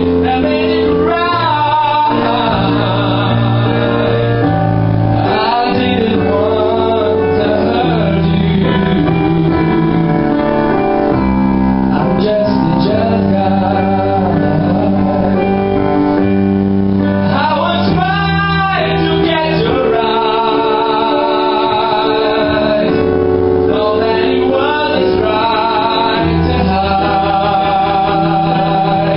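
A man singing into a microphone, accompanied by an electronic keyboard playing sustained chords. The voice holds long notes with vibrato.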